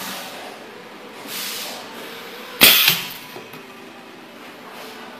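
Desktop pneumatic hot stamping machine cycling. A soft hiss comes first, then about two and a half seconds in a single sharp clack, with a hiss dying away after it.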